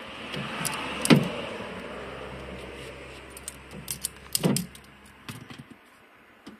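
Wire strippers snapping shut on a car door's wiring harness: two sharp clicks about three seconds apart and some smaller ticks as the wires are handled. Under them is a rushing noise that swells early on and fades out near the end.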